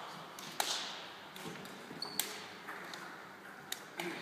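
A few scattered knocks and a short squeak echoing around a large sports hall: a basketball bouncing and shoes on a hardwood court.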